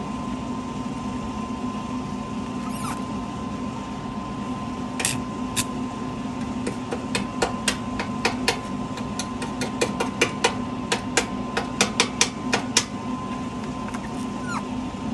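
Welding machine humming steadily, with a run of sharp metallic taps from about five seconds in, coming several a second near the end.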